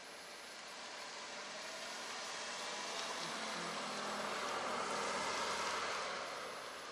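A car driving past: engine and tyre noise swell to a peak about five seconds in, then fade.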